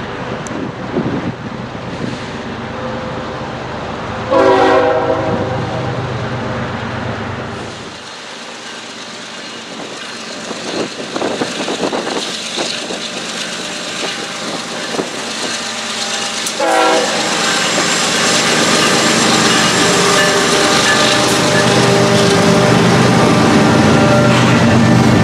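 Horn of a CN GE ES44AC freight locomotive sounding twice: a loud blast about four seconds in, and another about twelve seconds later. Between and after the blasts, the passing train rumbles, and it grows louder as the two ES44AC locomotives and their double-stacked intermodal cars go by.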